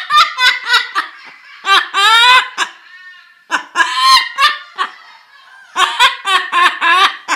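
Amazon parrot mimicking human laughter: loud, rapid 'ha-ha-ha' runs in about four bouts with short pauses between them.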